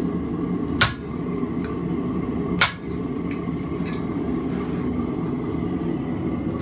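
Hand hammer striking a chisel held on a forged steel leaf on the anvil, cutting in the leaf's veins: sharp metallic blows roughly two seconds apart, with a fainter one between them, over a steady low hum.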